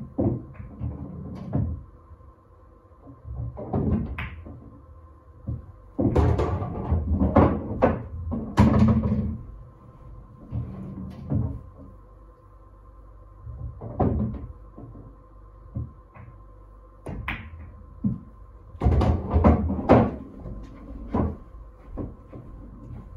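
Pool balls on a Diamond pool table during a run of shots: sharp clicks of the cue tip and of balls striking each other, followed by low thuds and rumbling as balls drop into pockets and roll away, in several clusters with quiet gaps between. A faint steady high hum sits underneath.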